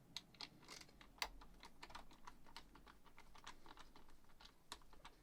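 Faint, irregular light clicks, a few a second, from a screwdriver and small metal screws as machine screws are worked out of the shield plate of a boombox cassette deck. The sharpest click comes about a second in.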